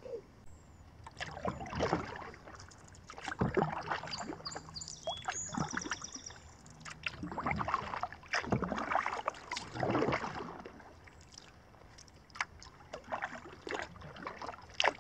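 Kayak paddling: the paddle blades dipping and pulling through calm water, a swish and splash every couple of seconds, with small drips and knocks between strokes.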